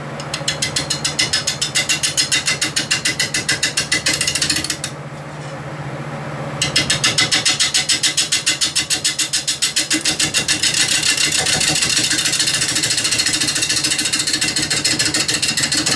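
A gouge roughing a spalted-wood blank spinning on a Reeves drive lathe at 420 RPM: a rhythmic cutting noise at about seven beats a second, one per turn of the blank, over the lathe's steady hum. The cutting stops for about two seconds roughly a third of the way in, leaving only the hum, then resumes.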